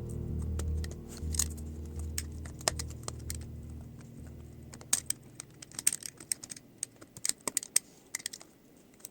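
Irregular small sharp clicks and taps, like plastic laptop parts and tools being handled, over low background music that fades out by about halfway.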